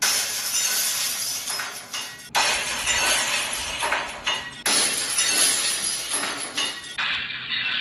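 The 'glass pipe falling' meme sound effect, a glass pipe clattering as it falls, played through phone and tablet speakers. It is replayed four times in a row, a fresh take starting suddenly about every two and a half seconds. The last take sounds duller, with its top end missing.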